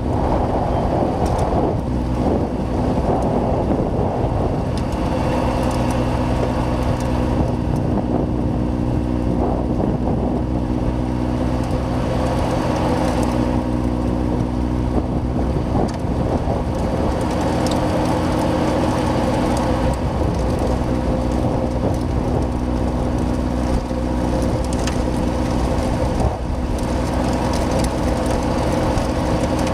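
John Deere 6110R tractor's diesel engine running steadily under load while pushing snow with a loader-mounted blade, with wind rumbling on the microphone.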